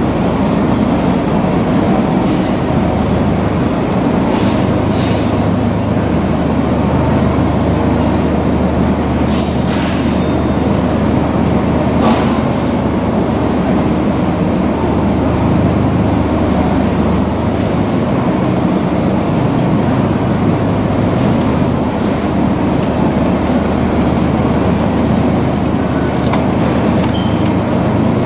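Steady low rumbling background noise of a supermarket aisle lined with refrigerated display cases, with a few faint scattered clicks.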